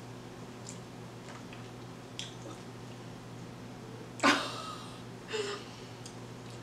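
Mouth sounds of a person eating a fresh strawberry: faint smacks and chewing, with a short, louder wet mouth sound that falls in pitch a little over four seconds in and a smaller one about a second later.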